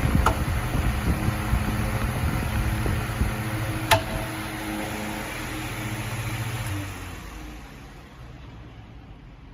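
Suiden SF-45MV-1V industrial electric fan running with a motor hum and rushing air, then winding down: a couple of sharp clicks, the air noise fading, and the hum stopping about seven seconds in.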